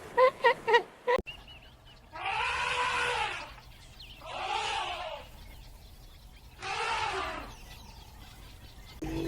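A quick series of short, high animal yelps that stops abruptly, then three long, breathy bleats of a sheep, about two seconds apart.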